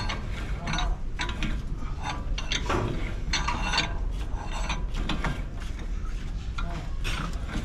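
A very big wrench working on a truck's wheel hub, making repeated metal clicks about two a second as the parts inside the hub are tightened.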